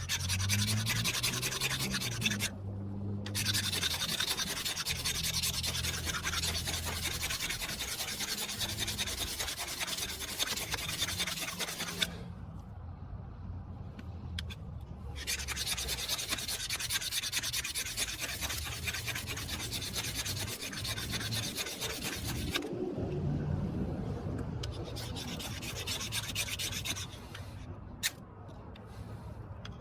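Stainless knife scraped hard and continuously along a thick ferrocerium rod, in long rasping runs broken by a short pause and a longer one, then lighter, scattered scrapes near the end. The rod still carries its protective coating, so the blade is scraping through it to reach the sparking metal.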